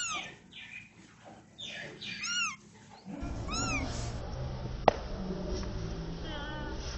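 Kitten mewing: several short, high-pitched mews in the first four seconds and a fainter one near the end. After about three seconds a steady low rumble comes in, with a single sharp click about five seconds in.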